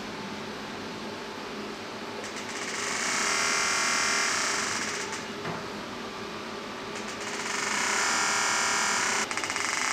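Air-cooled EMS muscle-sculpting machine running a treatment: its applicator handles give a rapid pulsing buzz in stretches of two to three seconds, starting about two and a half seconds in and again about seven seconds in, over the steady whir of the cooling fan.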